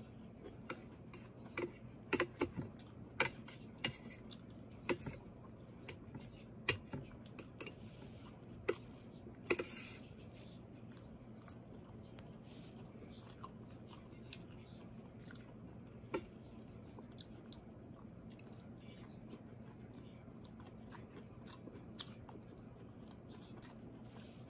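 Close-miked chewing of broccoli: wet, crisp mouth clicks and crunches, frequent in the first half and only occasional after, over a low steady hum.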